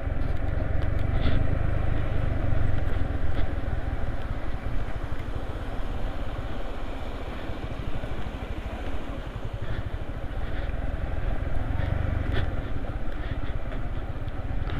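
Yamaha MT15 V2 motorcycle's 155 cc liquid-cooled single-cylinder engine running steadily while riding along, with a low rumble and road noise.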